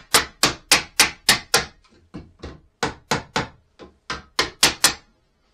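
Hammer knocking a tight-fitting timber cross member into place: quick sharp blows on wood, about four a second, in three runs with short pauses between, stopping near the end.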